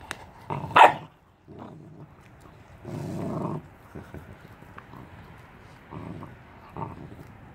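Two puppies, a Lycan Shepherd and a Renascence Bulldogge, gnawing on frozen whole tilapia, with a short growl about three seconds in as one guards its fish. A sharp, loud noise stands out just under a second in.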